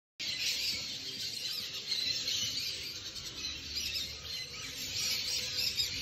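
A dense chorus of many birds chirping and calling at once, the calls overlapping without a break.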